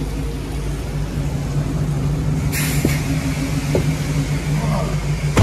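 Pickup truck's engine idling with a steady low hum. A short hiss comes about two and a half seconds in, and a sharp knock right at the end.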